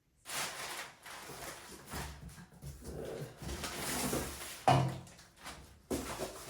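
Cardboard box being emptied by hand: rustling and scraping of packing and parts, with one sharp knock about three quarters of the way through.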